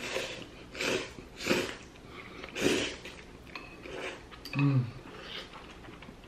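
Kalguksu noodles slurped from a bowl of noodle soup, about four loud, hissing slurps in quick succession. A short hum follows about four and a half seconds in.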